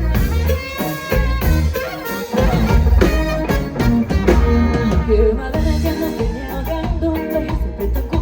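Live band playing an upbeat Latin pop song with a steady beat.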